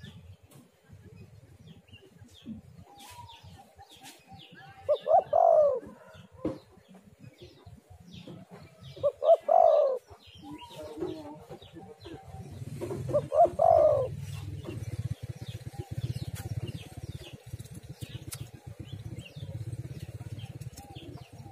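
Spotted dove cooing: three loud coo phrases about four seconds apart, with small birds chirping faintly in the background.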